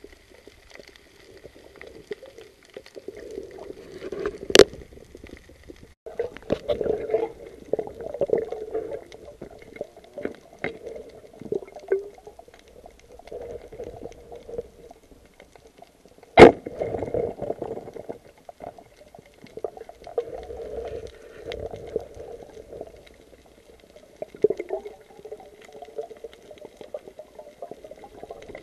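Underwater sound heard through a camera housing: muffled sloshing and bubbling water, with two sharp knocks, one about four seconds in and a louder one about sixteen seconds in.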